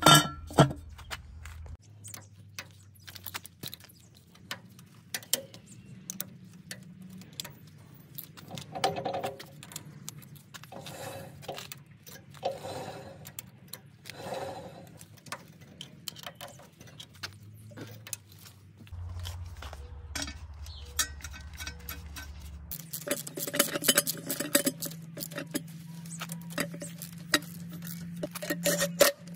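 Hand-tool work on the tractor's metal brake housing: scattered metal clinks and knocks with a few short squeaks, then a dense run of rapid clicking over the last several seconds.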